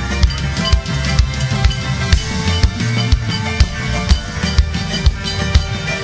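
Live band music: a drum kit keeps a steady beat with strong hits about twice a second over sustained keyboard chords.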